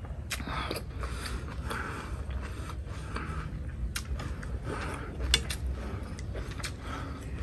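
Eating sounds: chopsticks and a spoon clicking against a large ceramic soup bowl of chillies and noodles, with chewing and breathy puffs between bites.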